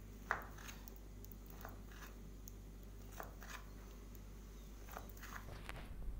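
Kitchen knife slicing through a steamed alu vadi roll of colocasia leaves and gram-flour paste on a wooden cutting board. A scattering of faint soft knocks and clicks comes as the blade goes through and meets the board; the first, just after the start, is the loudest.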